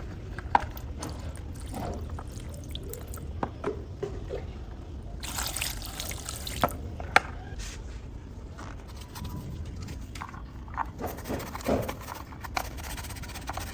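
Water trickling and dripping during the wash of a small scale-model toy car, with scattered sharp little clicks and taps. A brief hissing rush of water comes about five seconds in, and another near the end.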